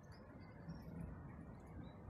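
Quiet outdoor ambience: a steady low background hiss and rumble, with a few faint, short, high bird chirps.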